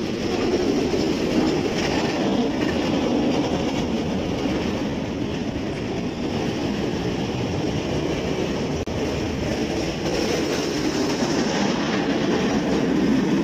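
Snowplough truck clearing a snowy street, its front steel blade scraping along the road with a steady rumbling under the truck's engine.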